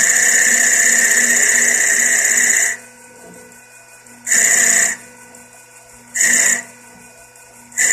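CNC lathe tool cutting a spinning workpiece in passes of a roughing cycle. One long cut of nearly three seconds comes first, then three shorter cuts about a second and a half apart, each briefer than the last. The spindle motor hums steadily underneath.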